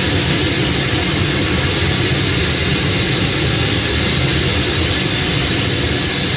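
A hot air balloon's propane burner firing continuously: a loud, steady rushing noise of the flame.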